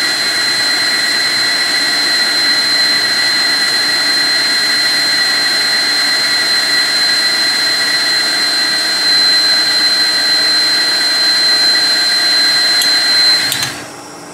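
Pencil torch flame hissing steadily with a thin high whistle as it heats the score line on a spinning glass bottle. Near the end a faint click marks the glass cracking along the score line, and the hiss drops away suddenly.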